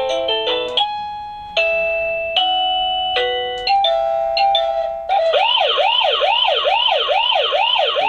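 Plug-in wireless doorbell chime playing its electronic melodies: a run of stepped beeping notes, then about five seconds in a siren-like rising-and-falling warble repeating two or three times a second.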